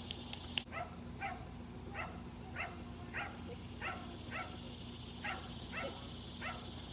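A dog barking over and over, about ten short barks spaced roughly half a second apart, with a single sharp click about half a second in.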